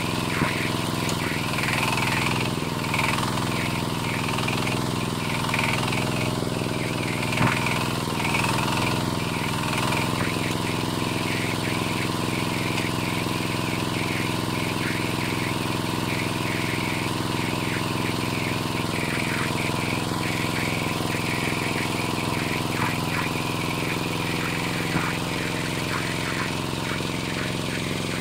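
Zubr 12 hp walk-behind tractor's single-cylinder diesel engine running steadily under load as it pulls its trailer and driver up a slope.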